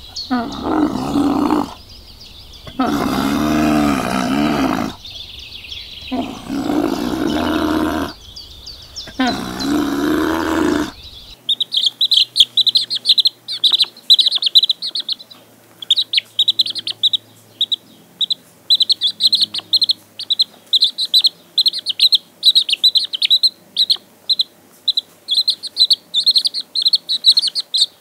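Four long, loud animal calls, each a couple of seconds and wavering in pitch, over the first eleven seconds. Then young chicks peep: rapid high cheeps several times a second, from more than one chick at once, until the end.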